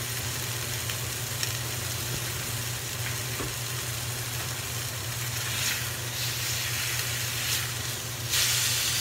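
Palomilla steak searing in hot oil in a frying pan, a steady sizzle. Near the end the steak is flipped, and the sizzle jumps suddenly louder as the uncooked side hits the oil.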